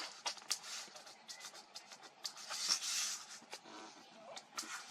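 Faint handling noises from unboxing a phone: scattered light clicks and taps of cardboard and packaging, with a short rustle of paper or plastic about two and a half seconds in.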